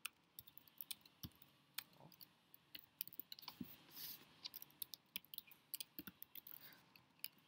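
Faint computer-keyboard typing: scattered, irregular keystroke clicks as a command is typed.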